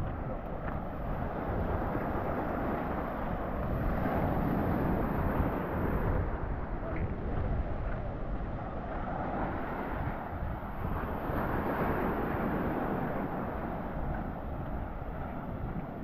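Surf washing onto a sandy beach, the noise swelling and easing with the waves, over wind buffeting the microphone.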